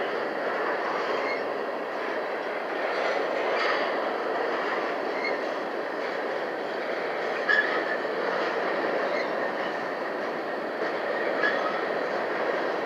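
Covered hopper cars of a very slow grain train rolling past on the rails: a steady rumble of wheels on track, with short high wheel squeaks every few seconds, the sharpest about halfway through.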